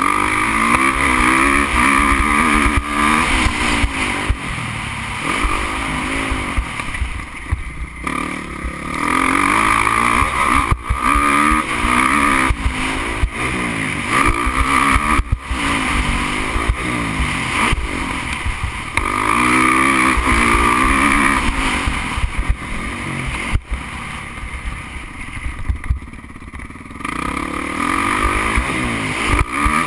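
Motocross bike engine heard from a camera mounted on the bike, revving hard and climbing in pitch through the gears, then falling away several times as the throttle closes, with wind buffeting the microphone.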